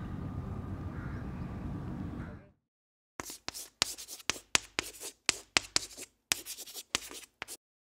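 Brush-stroke writing sound effect: a quick run of short scratchy strokes, about four or five a second, for about four seconds, as if paint or marker were being dragged across a surface. It comes after a faint steady background fades out and a moment of dead silence.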